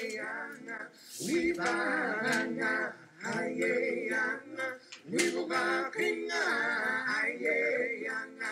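Music: a man singing a chant-like song in short repeated phrases, each sliding up in pitch at its start.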